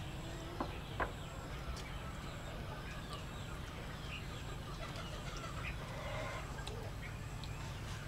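Chickens clucking, with scattered chirps over a steady low hum, and two sharp clicks within the first second.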